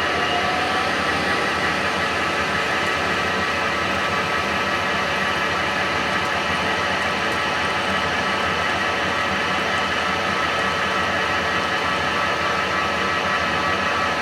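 Hendey lathe running steadily: an even mechanical hum with several steady tones, no change in speed.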